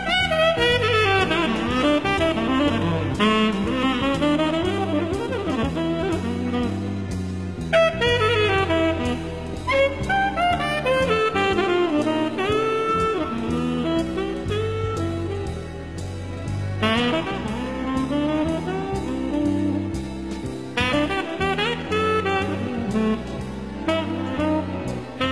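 Jazz music with a saxophone playing the lead melody over a rhythm section.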